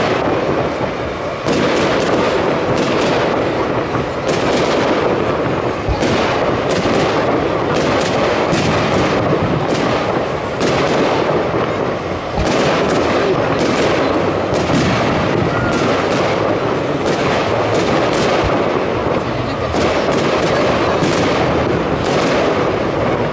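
Fireworks display: an uneven, continuous run of sharp bangs, one or two a second, over a steady crackle and rumble of shells and comets bursting.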